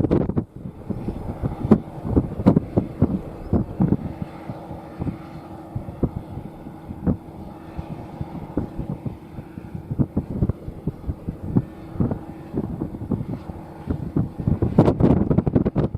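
New Holland T8.360 tractor engine running steadily, with wind buffeting the microphone in frequent gusts that grow heavier near the end.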